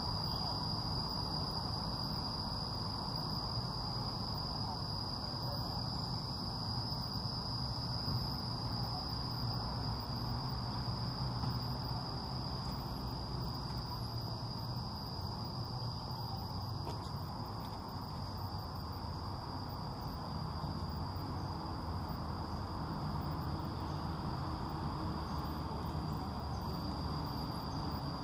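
Insects calling in one steady, unbroken high-pitched drone, over a low background rumble.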